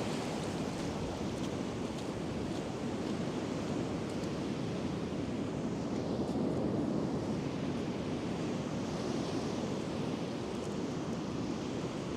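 Sea surf washing onto the beach, a steady rush of waves, with some wind on the microphone.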